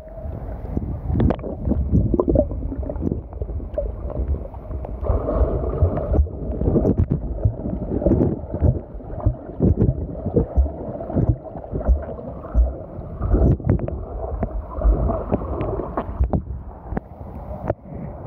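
Muffled swirling and sloshing of river water heard through a camera held underwater, with many dull knocks and bumps.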